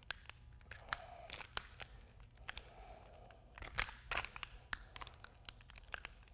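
Thick MMA resin slurry being poured out of a plastic bucket onto a floor. Faint scattered clicks and crackles are heard as it pours.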